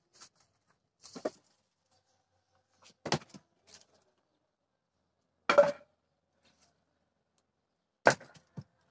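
Firewood logs clunking against each other as they are handled and set down on a woodpile: four separate wooden knocks a couple of seconds apart, the loudest about halfway, with a few lighter taps between.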